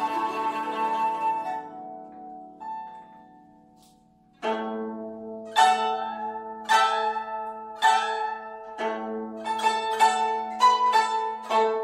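A small Chinese-folk ensemble of flute, keyboard, guzheng and erhu lets a held chord die away almost to silence. Then a guzheng plays plucked notes over a low held tone: about one a second at first, quickening into runs near the end.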